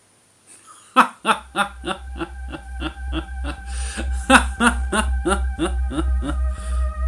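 A man laughing in a steady run of short bursts, about three a second, starting about a second in. Beneath it a low, pulsing synthesizer drone with held tones builds up.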